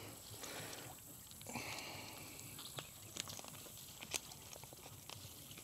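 Quiet outdoor background with a few faint, light clicks and knocks scattered through.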